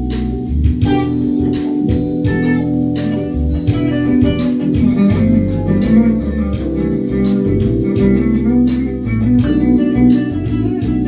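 Live jam with an electric bass guitar playing a moving bass line under sustained organ chords, punctuated by regular sharp percussive hits.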